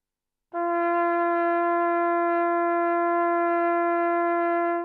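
Fürst-Pless hunting horn blowing one long, steady note, its lower G (the second of its five natural tones). The note starts about half a second in and stops near the end.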